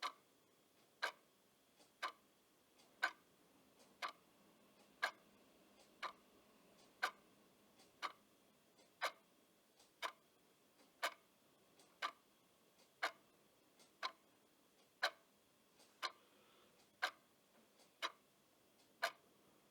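Clock ticking steadily, one sharp tick a second, with a fainter click between some of the ticks.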